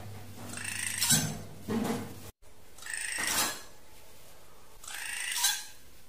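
Drongo calls from a lure recording used to call in drongos: four short, scratchy calls about a second apart.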